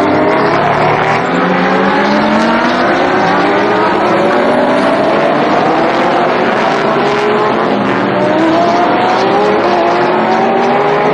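GT race car engines at full throttle, several cars overlapping, each climbing in pitch and dropping back again and again as it shifts up through the gears.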